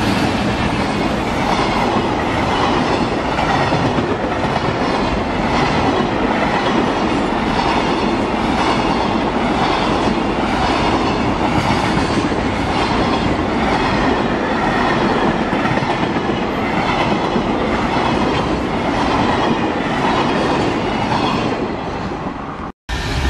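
Freight train of container wagons hauled by a JR Freight EH500 electric locomotive, running past at speed close by. It makes a steady rushing rumble with a regular clickety-clack of wheels over rail joints. The sound eases a little as the last wagon passes near the end, then cuts off abruptly.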